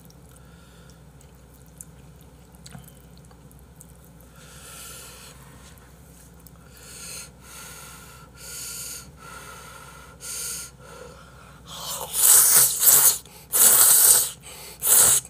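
A few soft breaths over the noodles, then a person slurping glass noodles (dangmyeon) out of a bowl of seonji haejangguk soup in three loud, wet slurps near the end.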